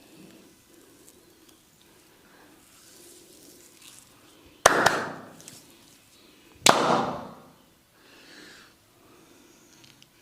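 Two loud, sharp hand slaps of a head-and-shoulder massage, about two seconds apart, each dying away within a second.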